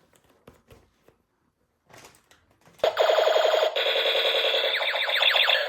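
A few faint clicks of handling, then, about three seconds in, a battery-powered toy gun's electronic rapid-fire sound effect starts suddenly and runs loud, at about ten pulses a second.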